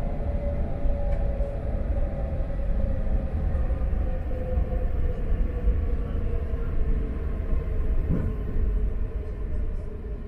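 Interior of an E4 series double-deck Shinkansen: the low rumble of the train running, with a faint whine that slowly falls in pitch as it brakes for a station stop. The noise eases off near the end.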